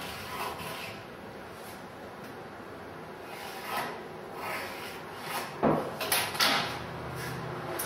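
Pencil scratching along a flexible rule held against a wooden paddle blank, with scrapes and rubbing of the rule on the wood. A single sharp knock a little past halfway comes as the rule is shifted on the board.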